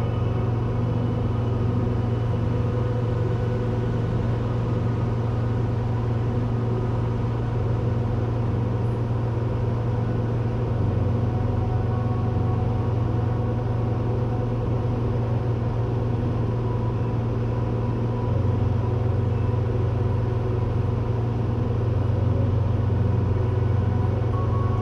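Steady drone of a Cessna 182's piston engine and propeller in flight: a deep, unbroken hum with a steady pitch.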